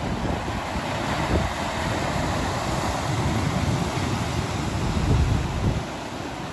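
Ocean surf breaking and washing up a beach, a continuous hiss of water, with gusting wind rumbling on the microphone that is strongest about five seconds in and then eases.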